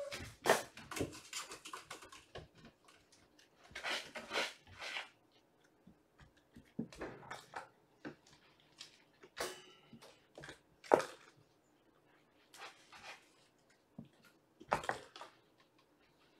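Kittens playing and zooming around a room: irregular thumps, patters and scrabbling claws as they run across a hardwood floor and leap on a cat tree. The sounds come in scattered clusters, with sharp thuds about half a second in and again about eleven seconds in.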